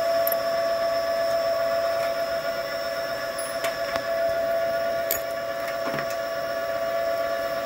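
Homemade motor-generator rig running steadily: a brushless motor on a high-voltage BLDC controller turning a belt-driven F150 truck alternator, giving an unchanging high whine. A few light clicks come through near the middle.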